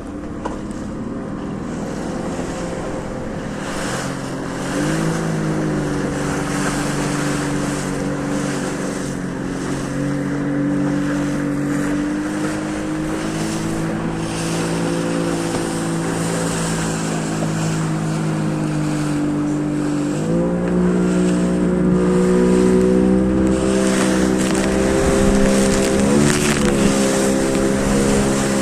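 Boat motor running under way, its pitch stepping up as the throttle opens about five seconds in and again about twenty seconds in, with a brief dip near the end, over wind and water noise.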